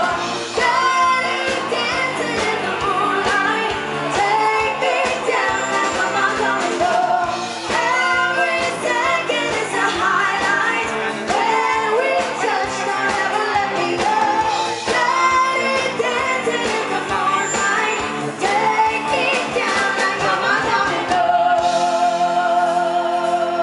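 Pop song with a lead vocal singing over a steady beat; about 21 seconds in the beat drops out, leaving a held, wavering sung note over sustained chords.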